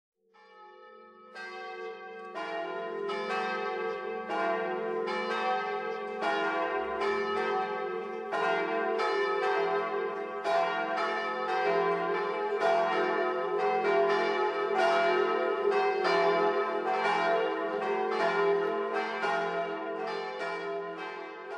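Church bells ringing a peal: one strike after another, about one or two a second, over a steady low hum from the bells, fading near the end.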